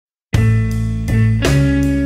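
Background music starting suddenly about a third of a second in.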